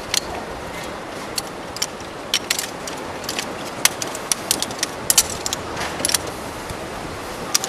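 Metal tripod stand being folded up by hand, its legs and joints giving irregular sharp clicks and clinks over a steady outdoor hiss.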